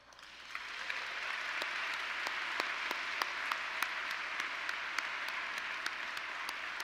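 Audience applause that builds over the first second and then holds steady. Sharp, close claps stand out about three times a second: the man at the podium is clapping along near the microphone.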